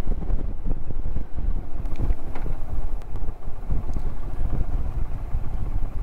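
2021 Indian Challenger's V-twin engine running as the motorcycle rides along, with wind rushing over the microphone.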